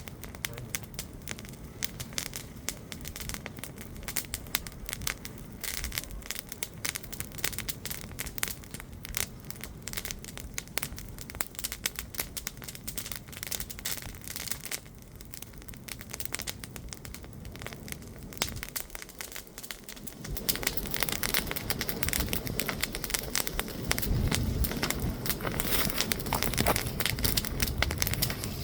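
Campfire crackling with many sharp pops, growing louder about two-thirds of the way through.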